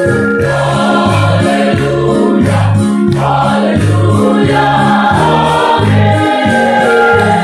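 Mixed choir of men's and women's voices singing a gospel song, over a low bass line whose notes change about twice a second.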